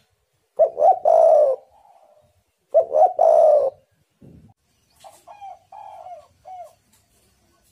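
Spotted dove cooing: two loud phrases, each a few short coos running into a long drawn coo, about a second in and about three seconds in, then a fainter run of short coos near the end.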